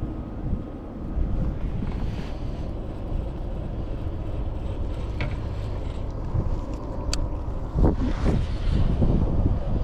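Wind buffeting the microphone: a steady low rumbling, with a few sharp ticks about five and seven seconds in.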